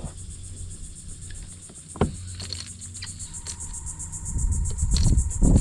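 Steady, evenly pulsing high-pitched chorus of insects from the mangroves. A sharp knock comes about 2 seconds in, a thin steady tone starts around the middle, and loud low rumbling of handling or knocking on the kayak builds near the end.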